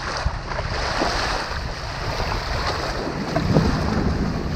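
Wind buffeting the microphone with a steady low rumble, over small waves washing on a sandy shoreline.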